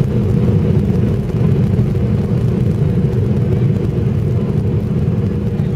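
Passenger airliner cabin noise on final approach: a steady, loud drone of engines and airflow heard from a window seat, with a low hum running under it.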